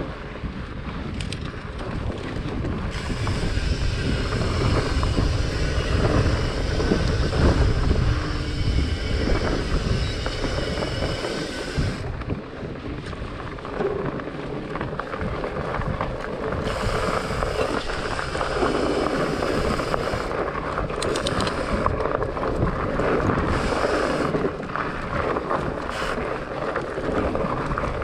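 Wind rushing over the camera microphone while a Trek Farley 9.6 fatbike rolls along a dirt singletrack, its wide tyres giving a steady rolling rumble, with a few short clicks and knocks from bumps in the trail.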